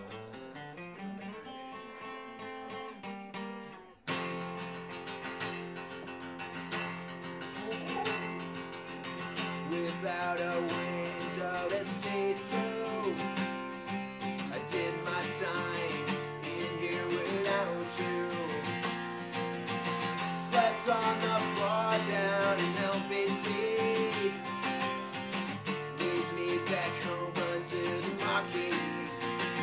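Acoustic guitar strummed in a steady rhythm, playing the instrumental intro of a punk song. Before it, a quieter plucked-string passage cuts off abruptly about four seconds in.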